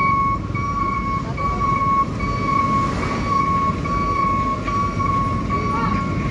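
Diesel engine of a loaded Fuso capsule tanker truck running as it struggles on a steep climb, a heavy low rumble. Over it a steady high-pitched beeping tone repeats with short breaks about every half second.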